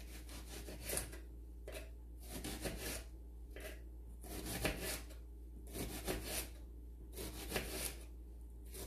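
Kitchen knife slicing through an onion on a wooden cutting board, one short cut about every second, each stroke ending in a light tap on the board.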